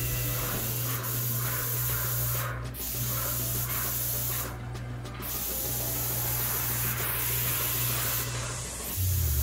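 Airless paint sprayer gun with a fine finish tip hissing as it sprays enamel onto a wall. The spray cuts out briefly twice as the trigger is let go, over a steady low hum.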